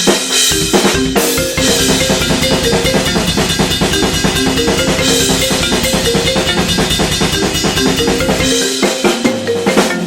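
Drum kit played fast and dense, bass drum, snare and cymbals, over the repeating melody of the iPhone ringtone. The bass drum drops out for about a second near the end before heavy hits come back.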